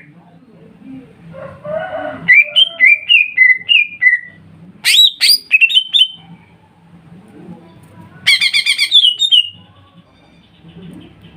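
Several cucak ijo (greater green leafbirds) singing together: loud clear whistled phrases of rising and falling notes, sharp upward sweeps about five seconds in, and a fast buzzy trill at about eight seconds. A faint low hum runs underneath.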